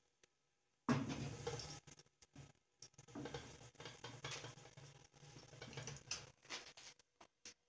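Faint sizzling and crackling of a thin egg pancake frying in a frying pan. The patter comes and goes in spells, loudest when it starts up about a second in.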